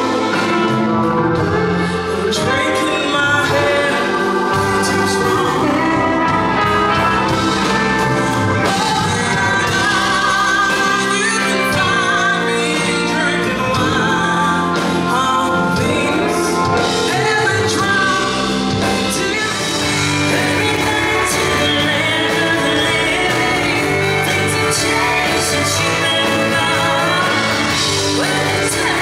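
Live band playing on stage, with a woman singing lead.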